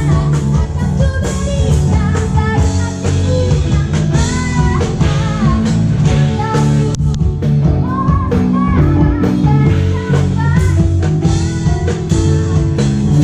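Live five-piece band (drum kit, bass, keyboard and electric guitar) playing a jazzy pop song, with a melodic lead line gliding and bending over a steady beat.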